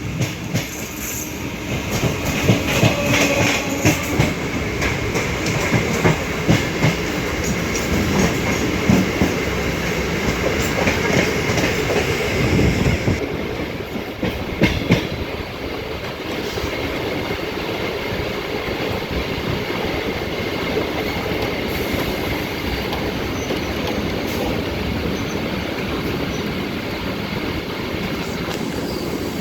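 Electric multiple-unit suburban train running at speed, its wheels clacking sharply over rail joints and points in the first half, then settling into a steadier rumble.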